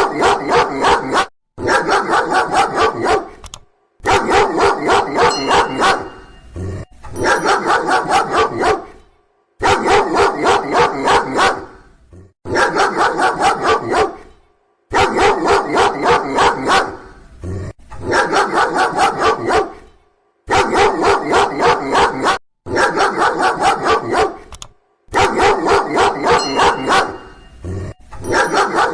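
A dog barking loudly in rapid volleys of about four to five barks a second. Each volley lasts two to three seconds and is cut off by a brief dead-silent gap, so the barking comes over and over in near-identical bursts, like a looped recording.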